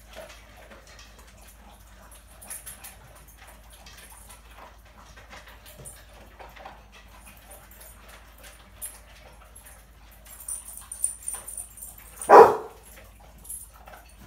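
A dog whining a few times, then one loud, short bark about twelve seconds in.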